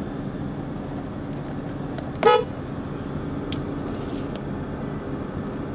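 A single short car horn toot about two seconds in, over the steady hum of a car cabin idling in traffic.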